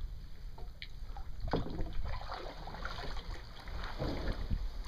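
Water splashing and trickling around a sea kayak as the paddle dips, with a few short splashes and a low wind rumble on the microphone.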